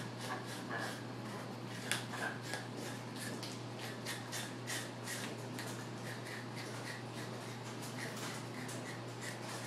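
Hyacinth macaw gnawing a piece of cuttlebone held in its foot, its beak scraping and shredding it in quick, irregular clicks, several a second, the loudest about two seconds in.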